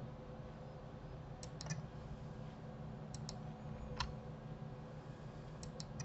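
Scattered sharp clicks of a computer mouse and keyboard, several in quick pairs, the loudest about four seconds in, over a faint steady hum.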